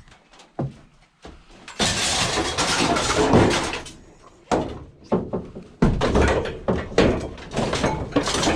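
Scrap metal being shifted and loaded into a van: a long, loud scrape about two seconds in, then a run of separate clanks and knocks.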